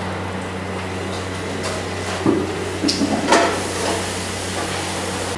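A steady low mechanical hum, with a few brief clatters about midway.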